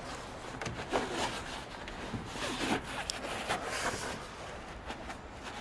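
Rooftop tent fabric rubbing and rustling in irregular scrapes as the protruding wall material is pushed and tucked inward by hand along the tent's side while it is folded closed.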